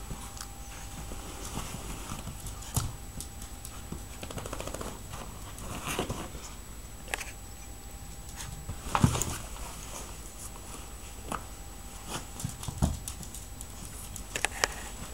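Two Petit Brabançon puppies scuffling inside a fabric pet bag: scattered rustles of the cloth and soft thumps, the loudest about nine seconds in.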